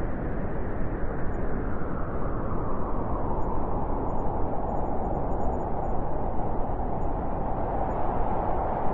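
Blizzard wind blowing steadily, a dense rushing noise with a slight howl that drifts a little higher in pitch.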